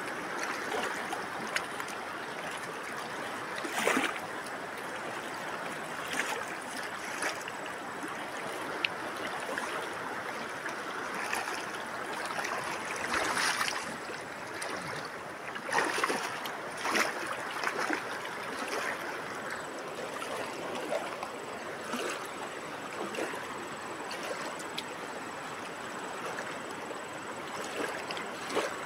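River water flowing steadily, with irregular splashes from a person wading and reaching into the water. The loudest splashes come a few seconds apart.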